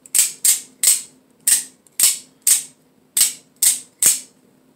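OTF (out-the-front) automatic knife being fired repeatedly, its spring-driven blade snapping out and back into the handle: about nine sharp metallic clicks, roughly two a second.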